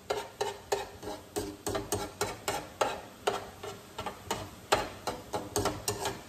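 A metal utensil stirring shrimp, vegetables and egg in sauce in a skillet, clicking and scraping against the pan about three times a second over a faint sizzle.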